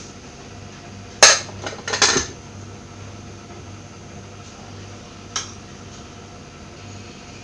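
Metal pressure cooker lid clanking against the pot and counter as it is lifted off and set down, with a few sharp clanks about one to two seconds in. Later a single light tick of a spoon against the pot as the rice is stirred.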